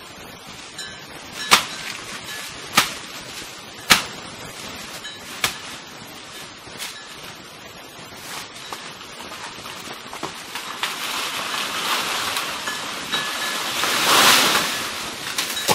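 Outdoor ambience among banana plants: a handful of sharp, separate clicks or snaps in the first half, then a rush of wind through the leaves that swells near the end and dies back.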